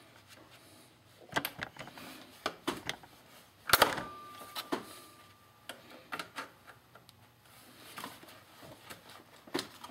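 Scattered clicks and metallic clinks of a hand tool working a hose clamp on the power steering reservoir hose. About four seconds in comes a sharper clank that rings briefly.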